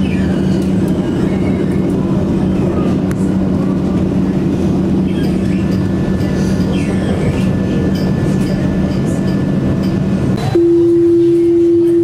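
Alstom Citadis 302 tram running, heard from inside the car: steady rolling noise with an electric hum. About ten seconds in, the noise gives way abruptly to a loud, steady single tone.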